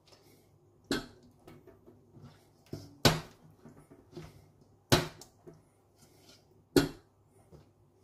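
Raw marinated chicken drumsticks being placed into a stainless wire rotisserie spit basket that rests in a metal roasting tray: about five short knocks and clinks, the loudest about three and five seconds in.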